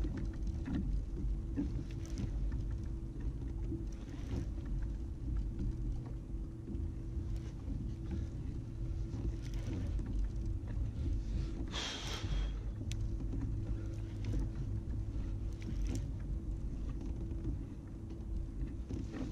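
Steady low rumble with a constant low hum from a fishing kayak on the water while a fish is reeled in on a rod and conventional reel. There is a brief hiss about twelve seconds in.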